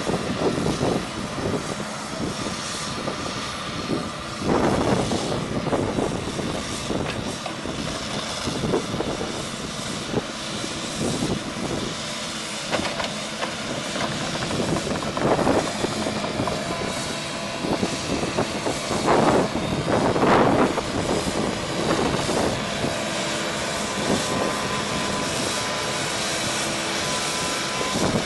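Tracked excavator's diesel engine running steadily under hydraulic load while its ditch-cleaning attachment works in a water-filled ditch, louder in a few surges.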